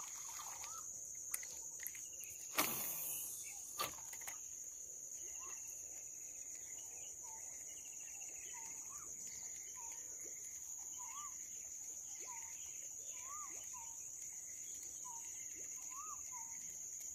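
Pondside evening ambience: a steady high-pitched insect trill, with short faint chirping calls repeating every second or so. A few knocks come in the first four seconds, the loudest about two and a half seconds in.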